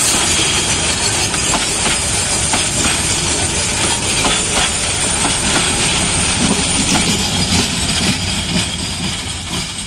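Heavily loaded metre-gauge freight train of covered wagons rolling slowly past at close range, wheels clattering over the rail joints under a steady rush of rolling noise. It begins to fade near the end as the last wagon goes by.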